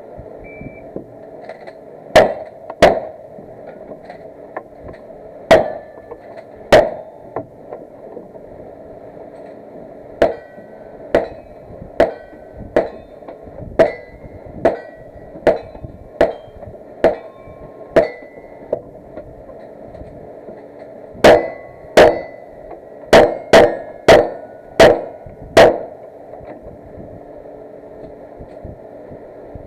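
A string of gunshots: two loud pairs of shots in the first seven seconds, then about eleven quieter shots evenly spaced a little under a second apart, then a fast run of about seven loud shots near the end. Several shots are followed by a short metallic ring, typical of steel targets being hit.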